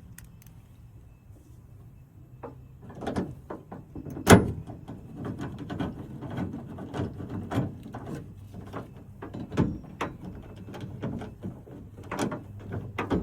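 Irregular clicks and knocks of a socket wrench and metal bolt being worked into the sliding-door handle bracket. The loudest is a single sharp knock about four seconds in, after a quiet first couple of seconds.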